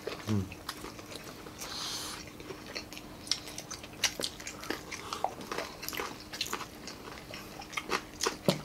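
Several people eating fried pork pinakupsan and rice with their hands: close-miked chewing and biting, with many small crunches and mouth clicks scattered throughout.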